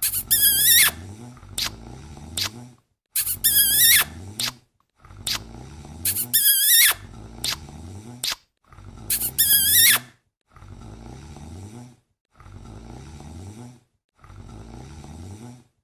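Snoring repeated about every three seconds: each snore is a rough, low rumble, and the first four end in a loud, high, wavering whistle. The last three snores, from about ten seconds in, are quieter and have no whistle.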